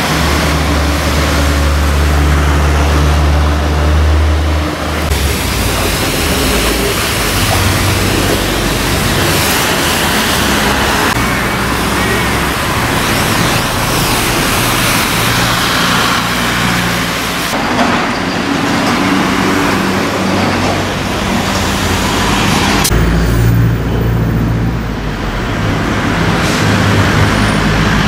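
Street traffic: vehicle engines running and passing, with a low engine hum under steady road noise that shifts abruptly a few times.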